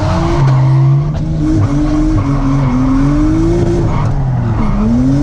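A drifting car's engine held at high revs, the pitch climbing and falling repeatedly with a sharp dip near the end before rising again, while the tyres skid.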